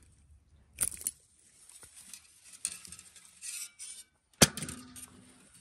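Fishing gear being handled: a scattered series of small hard clinks and knocks, the sharpest about a second in and the loudest a little past four seconds.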